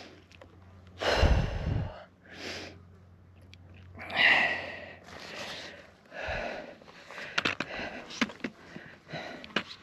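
A hiker breathing hard in heavy gasps about a second apart, out of breath from a steep climb, with one breath gusting onto the microphone about a second in. Light clicks in the second half.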